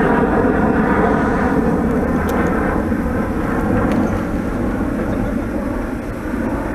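A jet airliner passing low overhead, its engines loud and steady, slowly fading away.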